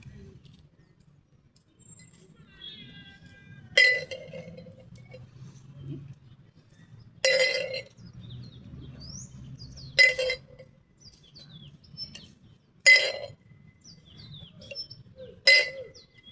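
Five sharp clinks with a short ringing, spaced about every two to three seconds: a flair bartending bottle knocking against a tin or glass as the trick is practised. Faint chirping sits underneath.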